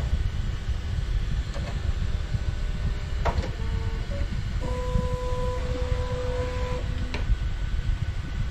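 3D printer at work: a steady low hum underneath, with stepper motors giving short pitched whines as the axes move, the longest lasting about two seconds a little past the middle, and a few sharp clicks.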